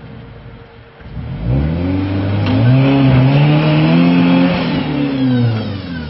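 Jeep MJ (Comanche) pickup's engine revved hard under load as the truck climbs a slick, muddy rock ledge, its pitch climbing about a second in, holding high, then dropping away near the end.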